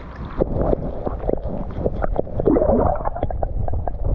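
Muffled gurgling and sloshing of water around a submerged action camera as a brown trout is held and released by hand, with many small clicks and knocks and a louder gurgle a little past halfway.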